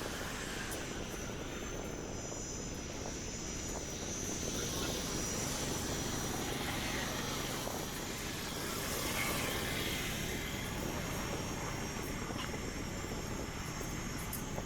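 Street traffic heard from a moving bicycle: a steady rush of motor vehicles and road noise mixed with wind on the microphone. It swells louder about nine seconds in.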